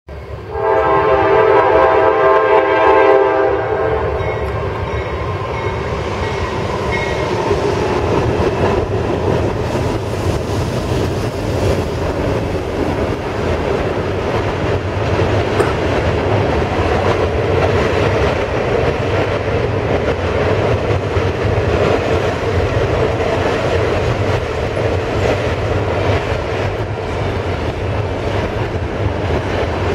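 Norfolk Southern freight train: the locomotive's air horn sounds one long blast of about three seconds, then the train rolls steadily over the trestle bridge with a continuous rumble and wheel clatter as the double-stack container cars cross.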